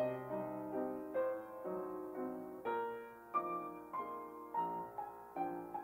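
Quiet background piano music: a slow melody of single notes.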